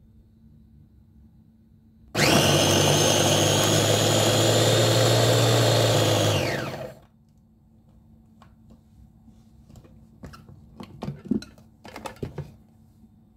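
Simplus electric food chopper running for about four seconds as it minces food in its glass bowl, then winding down with a falling whine. A few light clicks and knocks follow as the motor unit is lifted off the bowl's lid.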